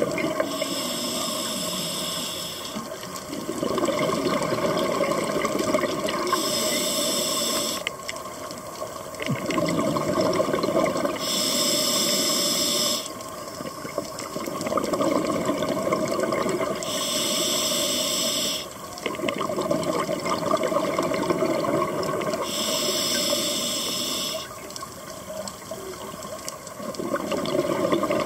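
Scuba diver breathing underwater through a regulator in a slow, even cycle of about one breath every five to six seconds: a short hiss on each inhalation, then a longer stretch of bubbles gurgling out on each exhalation.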